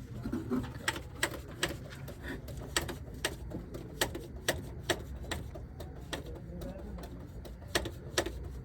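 A series of sharp, irregularly spaced clicks or knocks, one or two a second with a pause of about two seconds past the middle, over a steady low hum.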